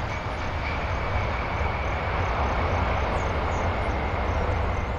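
Boeing 747's four jet engines running with a steady rushing noise and a low rumble as the airliner rolls out just after touchdown. A thin steady whine sits over the noise from a moment in.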